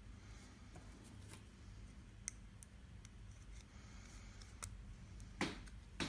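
Faint small clicks and taps from hand work with soldering tools and components, over a low steady hum. Two louder sharp clicks come near the end.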